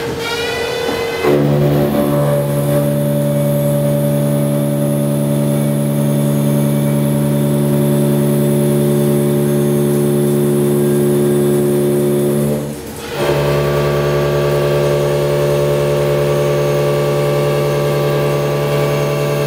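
Haas VF-9 vertical machining center milling a steel blade stabilizer with a 4-inch face cutter: a rising whine in the first second, then a loud, steady multi-tone drone from the cutter in the cut. About 13 seconds in the sound drops out briefly, then the same steady drone resumes.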